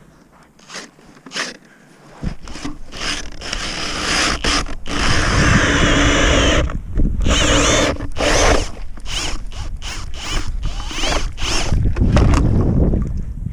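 Power drill driving an ice auger down through black ice to bore a test hole, the motor whining and the bit grinding and chipping. It starts about two seconds in and runs in stop-start bursts.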